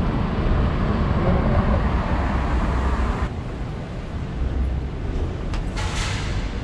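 Road traffic noise from the street below, a car going by, that drops off suddenly about three seconds in to a lower steady hum.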